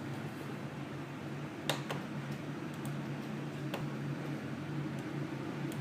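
Steady low hum of a workbench room, with a few light, sharp clicks.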